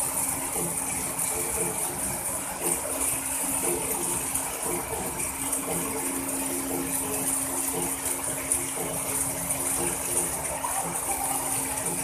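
Steady machinery din at a pipeline welding station: a constant hum under a hiss, with light irregular rattling.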